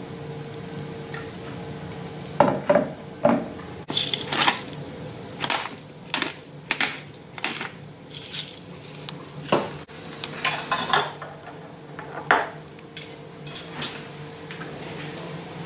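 Cutlery and crockery clinking and knocking irregularly, a dozen or more sharp clinks, starting a couple of seconds in, over a steady low hum.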